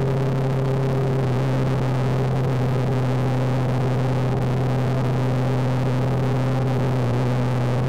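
Suzuki V-Strom 250's parallel-twin engine running at a steady speed while riding: an even drone that holds one pitch, with road and wind noise underneath.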